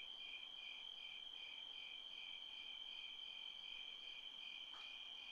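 Faint crickets chirping: a steady high trill, with a second chirp pulsing about two to three times a second.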